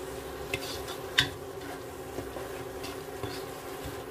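Wooden spatula stirring and scraping ground meat and vegetable filling around a pan, with a few sharp clicks of the spatula against the pan, the clearest just over a second in. A steady low hum runs underneath.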